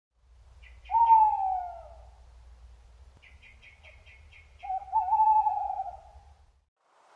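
Tawny owl hooting: a long falling hoot about a second in, then after a pause a longer, wavering hoot.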